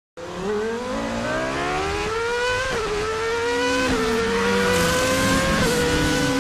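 Car engine accelerating hard through the gears, its pitch climbing steadily and dropping at each of three upshifts.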